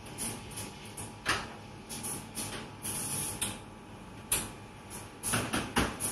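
Café ambience: irregular clinks and clatters of crockery and cutlery over a faint steady hum, with a burst of louder clattering near the end.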